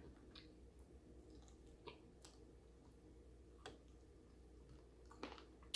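Near silence with a handful of faint, short clicks spread across a few seconds.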